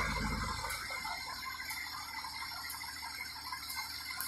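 Fire engine running at idle: a low rumble that fades in the first second, then a steady background hum with a faint tick about once a second.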